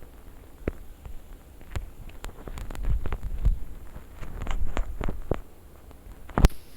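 Irregular clicks and soft low knocks, with one sharper, louder click near the end.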